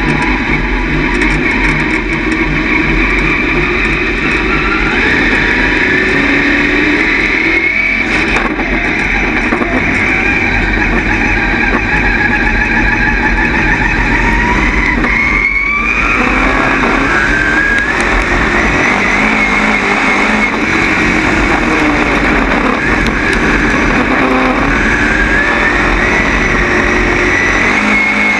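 Dirt late model's V8 engine heard from inside the car at racing speed, its pitch climbing and falling again and again, with sharp drop-offs about eight seconds in and again near sixteen seconds.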